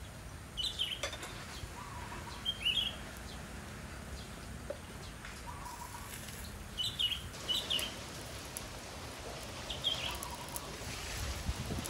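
Short, high chirping animal calls, about five of them spaced a second to a few seconds apart, over a steady background hiss.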